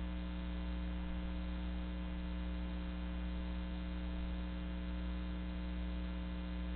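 Steady electrical mains hum with a buzz of evenly spaced overtones, unchanging throughout; no owl calls or other sounds stand out above it.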